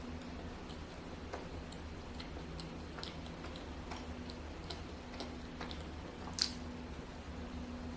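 Close-miked chewing of a seaweed pork-floss sponge cake, with scattered soft wet mouth clicks and one sharper click about six and a half seconds in.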